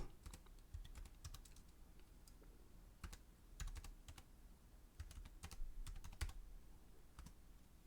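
Faint typing on a computer keyboard: irregular keystrokes in small clusters.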